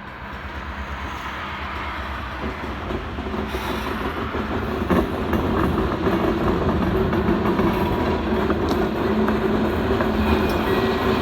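Diesel freight train running on the rails: locomotive engine drone and rolling noise that grows steadily louder as the train approaches.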